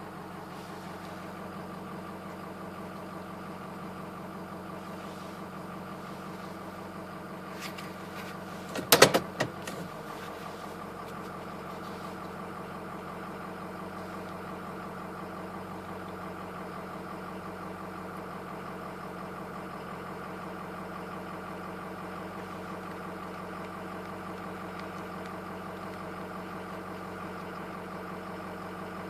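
Ford F250 Super Duty's diesel V8 idling steadily. A brief clatter of a few sharp knocks about nine seconds in.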